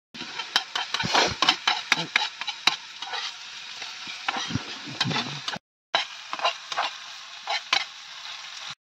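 Chopped onions frying in a pan with a steady sizzle, a metal spatula clicking and scraping against the pan as they are stirred.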